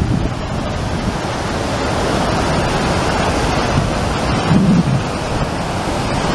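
Large waterfall: a steady rush of water pouring over a rock ledge, with some wind buffeting the microphone.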